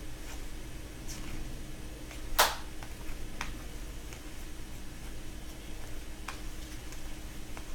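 Hockey trading cards being thumbed through by hand: faint scattered ticks of cards sliding past one another, with one louder brief swish about two and a half seconds in, over a low steady hum.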